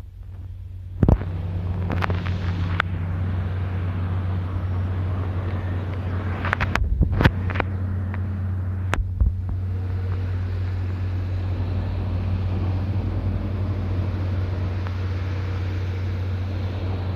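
A train running past at a level crossing: a steady low rumble that sets in about a second in, with several sharp clacks during the first nine seconds.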